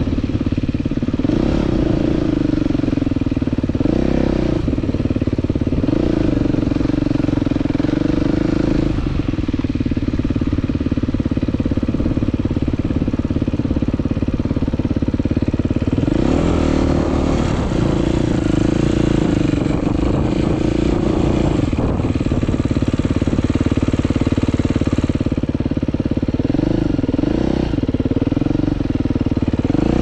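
Husqvarna 450 single-cylinder four-stroke motorcycle engine running under load as the bike is ridden over dirt. It revs up and drops back several times, with steadier stretches between.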